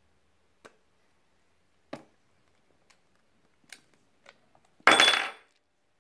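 John Guest Speedfit plastic push-in fittings and pipe being handled: a few light clicks and taps, then a louder scraping rattle lasting about half a second near the end.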